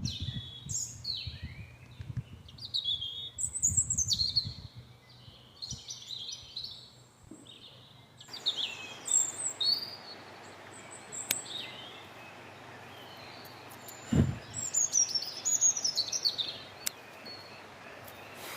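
Wild birds singing and chirping, many short high calls and trills over a steady outdoor hiss that gets louder after a cut about eight seconds in. A single low thump comes about fourteen seconds in.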